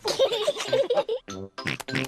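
High-pitched cartoon children's voices giggling and making short vocal noises, over light children's music.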